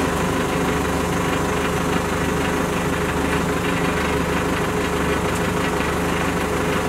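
TCM wheel loader's diesel engine idling steadily.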